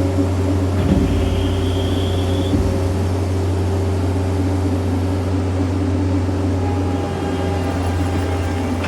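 Diesel engine of a piece of earthmoving equipment running steadily, a loud constant hum, with a brief high whine about a second in.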